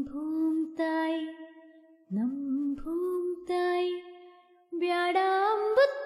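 A woman's voice singing a Kannada folk song in long held notes, each phrase sliding up into its note, with brief breaths between phrases.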